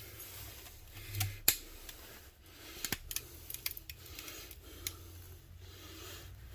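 Scattered sharp metallic clicks of hand tools working on a dishwasher motor, the loudest about one and a half seconds in and a quick run of clicks a little past the middle.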